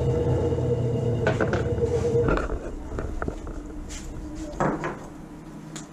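Small benchtop bandsaw running with a steady hum, ending abruptly a little over two seconds in. After that, a few light wooden knocks and clicks as a small wooden joiner block is handled and pressed into the joint where two sapele rails meet.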